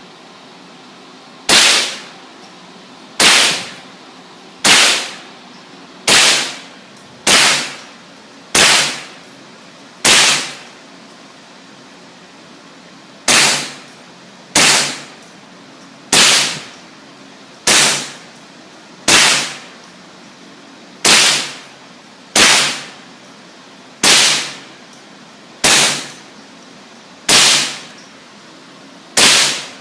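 Single gunshots fired one at a time on a shooting range, about one every one and a half seconds, with a pause of about three seconds near the middle, over a steady background hiss.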